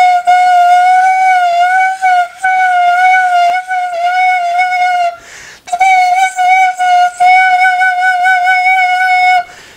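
Danso, the Korean notched bamboo flute, sounding one long steady note with a slight waver. The note is broken by a few brief dips and a short breath gap about five seconds in, then held again.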